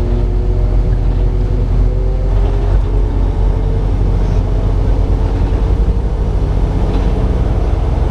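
A truck's engine and road noise heard inside the cab while it cruises in traffic, a steady low drone.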